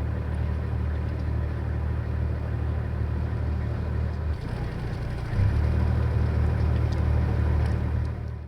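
A motor running steadily with a low hum. About four and a half seconds in it drops away for roughly a second, then comes back louder.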